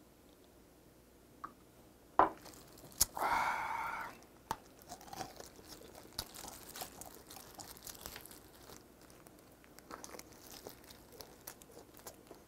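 Sharp knocks about two and three seconds in, then a short rustle. After that, small crackles as gloved hands tear meat from a braised pork trotter (jokbal), with chewing.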